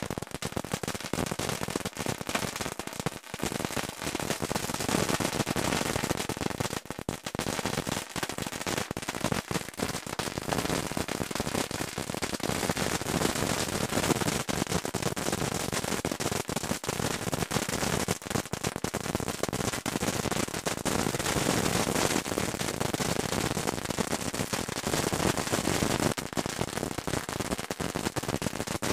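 Fireworks going off in a dense, unbroken crackle of rapid sharp bangs.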